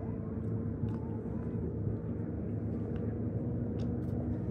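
Steady drone of motorboat engines out on the lake, with a few light clicks and rustles from a folding camp chair being unfolded.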